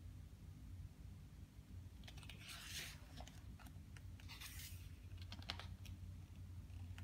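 A page of a thick photo book turned by hand, with two soft paper swishes about two and a half and four and a half seconds in, and a few light taps.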